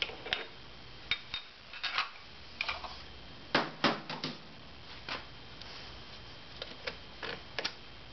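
Scattered metallic clicks and clinks of hand tools and steel parts being handled on a motorcycle's primary drive, with a louder run of clanks about three and a half seconds in.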